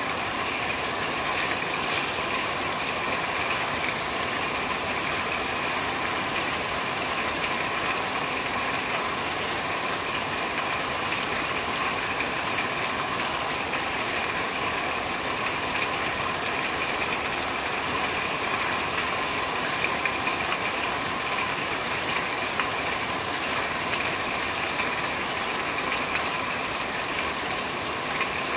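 Steady rain falling on a corrugated metal roof, a dense, even patter.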